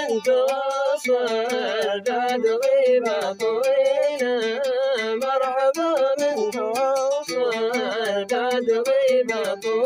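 Yemeni Hadrami Mashqasi song: a man's voice holding long, wavering melismatic notes over a quick, steady clicking beat.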